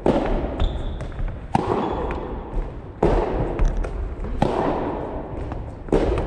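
Soft tennis rally: the rubber ball is struck by rackets and bounces on the wooden gym floor. It makes sharp pocks about every second and a half, each echoing long in the large hall.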